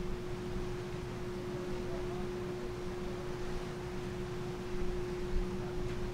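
Ferry underway: a steady hum with one constant tone from the ship's machinery, over an even rushing of wind and churning wake.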